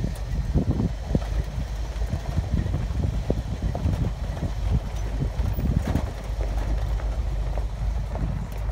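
An off-road SUV driving slowly over a rough dirt road. The engine rumbles low and steady, with frequent irregular knocks and rattles as it jolts over rocks and ruts.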